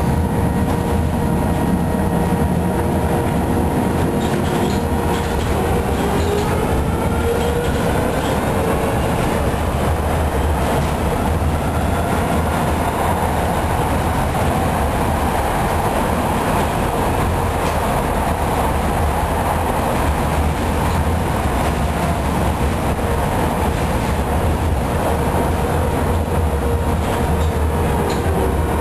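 Ganz UV tram running along the track, heard from inside the passenger saloon: a steady rumble of the wheels and running gear with a steady whine over it and the rail joints clicking under the wheels.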